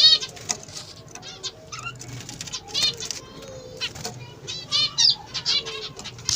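A group of small ornamental cage birds chirping busily in many short, quick calls that overlap one another.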